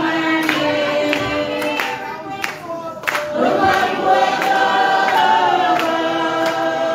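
A crowd singing together, with scattered hand claps; the singing drops off briefly about two to three seconds in and comes back louder.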